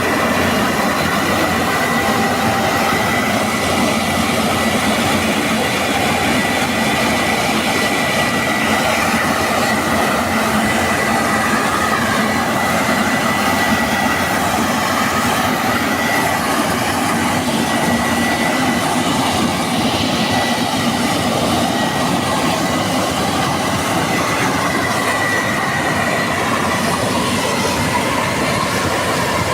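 Combine harvester running under load: a steady, loud mechanical roar with a high whine held throughout.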